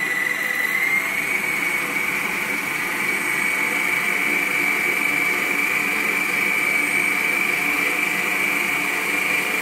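Bomann 1000 W stand mixer running, beating eggs and sugar in its steel bowl: a steady motor whine that steps up slightly in pitch about a second in as the speed dial is turned.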